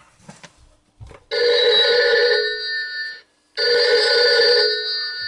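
Novelty chameleon telephone ringing: two rings of about two seconds each with a short pause between, after a few faint clicks in the first second.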